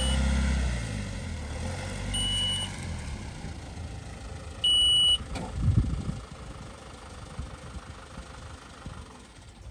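Van reversing, its reversing alarm giving three short, steady high beeps about two and a half seconds apart, the last one loudest, over the low running of its engine, which fades after about three seconds. A thud comes about six seconds in.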